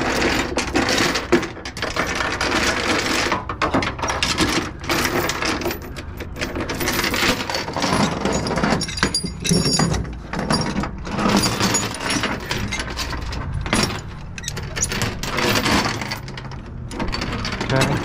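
Steel tie-down chain rattling and clinking in irregular bursts as it is dragged over the trailer deck and worked onto a chain binder and hook.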